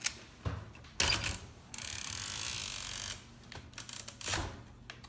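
Oliver No. 11 typewriter being handled: sharp clicks and clunks of its metal parts, the loudest knock about a second in, then a steady scraping slide lasting about a second and a half, and a few more clicks near the end.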